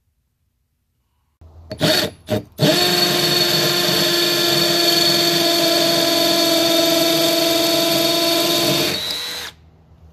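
Milwaukee M12 Fuel 2504-20 second-generation brushless hammer drill drilling into a brick with a masonry bit. Two short trigger blips come first, then a steady run of about six seconds that winds down near the end as the bit comes out.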